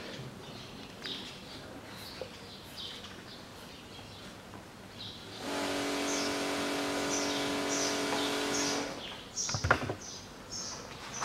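Small birds chirping repeatedly in the background. About halfway through, a steady motor hum comes in for some three seconds and then stops. Near the end there are a few sharp knocks.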